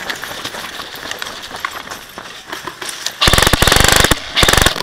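VFC 416 airsoft electric gun firing on full auto from a mid-cap magazine: a fast, even rattle of shots that starts about three seconds in, breaks off briefly and starts again. Before it come scattered clicks and gear rustle.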